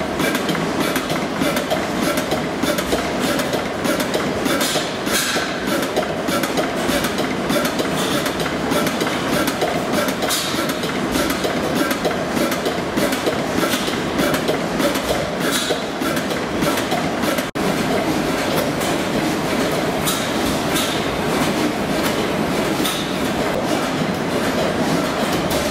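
Vintage horizontal stationary oil engines running, a steady, dense clatter of valve gear, fuel pump and moving parts, with a momentary break about two-thirds through.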